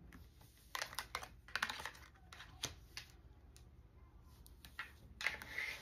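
A deck of tarot cards being shuffled and handled: faint, irregular light clicks and flicks of card stock, bunched in the first half and again near the end.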